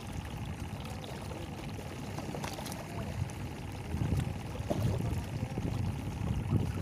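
Sea water sloshing and lapping against concrete breakwater blocks, with wind buffeting the microphone as a low rumble that grows from about four seconds in.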